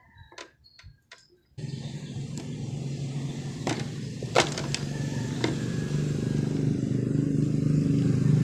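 A vehicle engine running steadily starts suddenly about a second and a half in and slowly grows louder. A few sharp plastic clicks come from the pressure washer's trigger gun being taken apart, around the middle.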